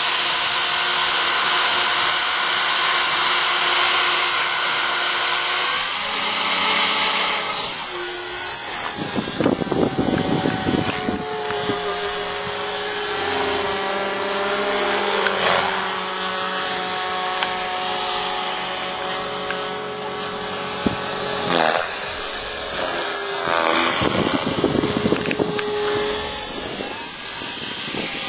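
Radio-controlled model helicopter's motor and rotors, a high-pitched whine. It holds steady at first, then shifts in pitch and keeps rising and falling as the helicopter is flown.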